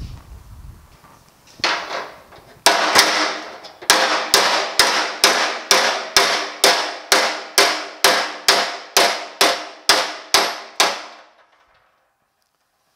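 Body hammer striking the steel running board of a 1950 Chevrolet truck, with a dolly held just beside the blow (dolly-off), to work out a dent. Two single blows, then a steady run of ringing metal strikes about two a second that stops shortly before the end.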